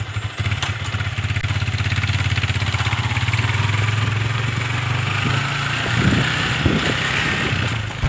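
Motorcycle engine pulling away and then running steadily, its note growing louder about half a second in, with rushing wind noise building up later.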